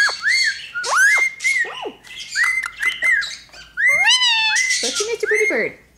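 Pet parrots, an Indian ringneck parakeet and a cockatiel, chattering in quick high chirps and squawks, many short notes that arch up and down, with a lower, voice-like stretch near the end.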